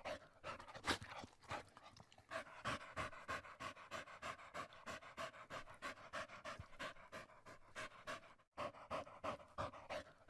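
A dog panting, quick short breaths in a steady rhythm, with a brief break about eight seconds in.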